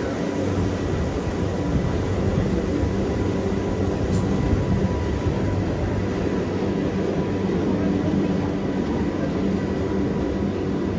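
Gornergrat Railway electric cog train running steadily: a continuous rumble with a low hum and a faint steady high whine.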